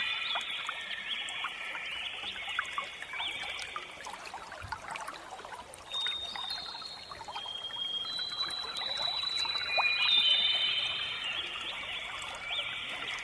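Water trickling and bubbling, with many quick little plinks, under a set of high, steady held tones.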